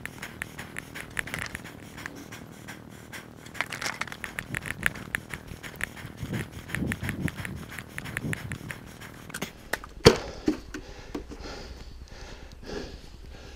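Footsteps through grass and garden brush with the walker's heavy breathing, then a single sharp knock about ten seconds in, followed by quieter rustling and sniffing.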